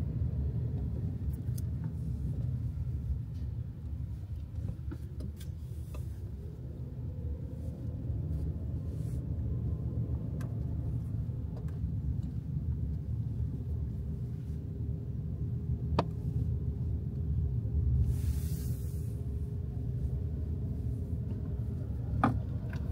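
Steady low rumble of a car driving on the road, heard from inside the cabin, with a few sharp clicks and a brief hiss late on.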